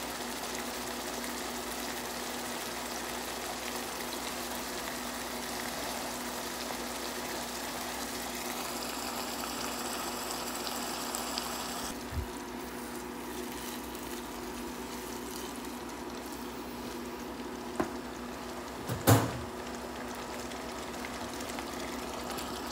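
Ground-beef picadillo simmering in tomato sauce in a pan, a steady bubbling hiss. A short knock about halfway through and a louder one near the end, against the pan.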